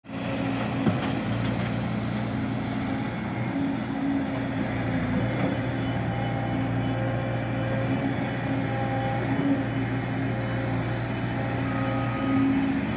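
The engine of heavy road-construction machinery running steadily, a low, even drone throughout.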